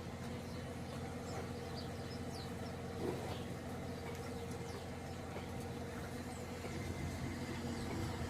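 A motor running steadily with a low, even hum, and a brief knock about three seconds in.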